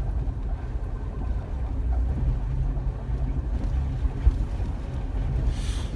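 Jeep Wrangler driving on a rough dirt trail, heard from inside the cabin: a low, steady rumble of engine and tyres. A short hiss near the end.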